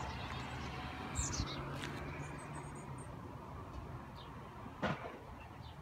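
Quiet outdoor ambience: a low steady hum that fades after about three seconds, with a few faint, short high chirps and clicks scattered through it.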